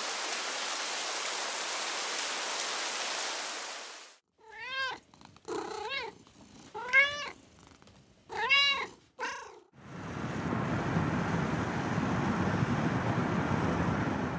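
Steady rain hiss for about four seconds, then a cat meowing about five times, each meow rising and falling in pitch. From about ten seconds in, a steady lower vehicle noise.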